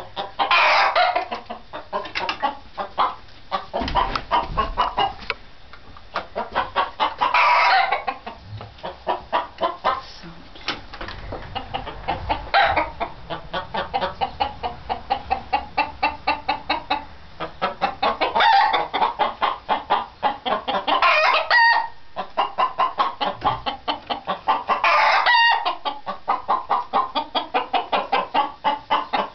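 Chickens clucking in long, rapid runs of several clucks a second, broken now and then by longer, louder calls.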